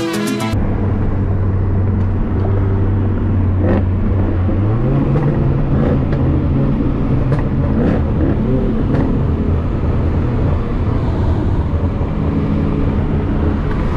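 Ford Mustang heard from inside the cabin while driving on a highway: steady engine drone with tyre and road noise. About five seconds in, the engine note rises in pitch and holds there, and a few light knocks come from the road.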